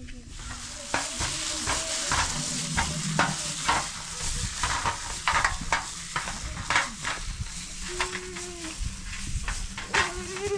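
Gloved hand kneading and squeezing a moist food mixture in a plastic bowl: a run of wet squelches with the crinkle of the plastic glove. A faint wavering call is heard twice near the end.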